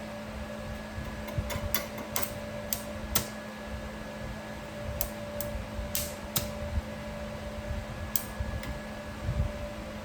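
A steady low hum with a fainter higher tone under it, and about a dozen irregular sharp clicks and taps scattered through.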